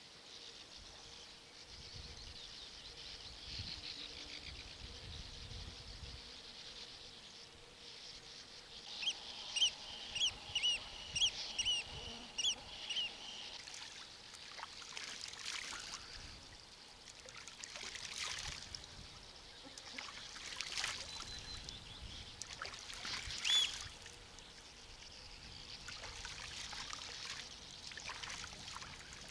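Riverbank outdoor ambience: a bird chirping in a quick run of short repeated notes partway through, over a steady high hiss, with scattered short clicks and rustles.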